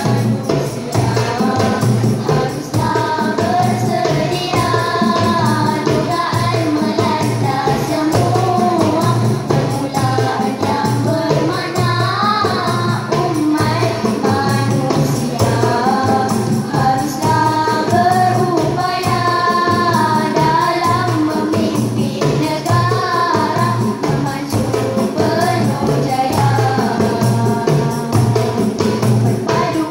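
A girls' vocal group singing together into microphones, amplified through a PA, over djembe hand drums keeping a steady beat.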